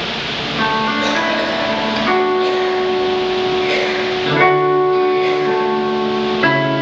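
Instrumental introduction to a song: sustained chords that change about every two seconds, with no voice yet.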